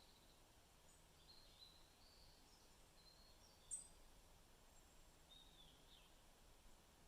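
Faint forest birds calling: a few short, thin whistles and chirps, with one sharper high chirp about halfway through, over very quiet background hiss.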